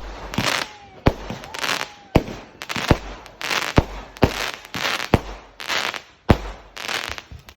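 Fireworks going off in quick succession: a string of sharp bangs, several a second at times, many trailed by a short crackling hiss.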